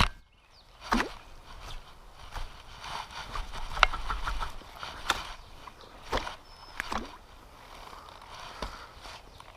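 Fishing rod and reel being worked to free a snagged lure: irregular sharp clicks and knocks, roughly one a second, over a faint outdoor background.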